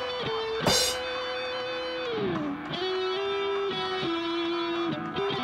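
Background music led by electric guitar, with held notes and one note sliding down about two seconds in. A sharp hit comes just under a second in.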